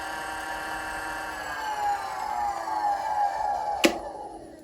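Variable-speed wood lathe's electric motor and spindle running with a steady whine that falls in pitch as it slows and spins down. A sharp click comes near the end as the whine dies away.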